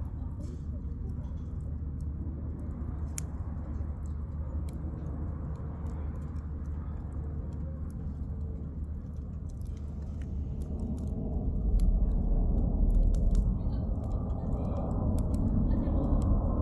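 Firewood burning in a campfire, crackling with scattered sharp pops over a low steady rush that swells louder about two-thirds of the way through.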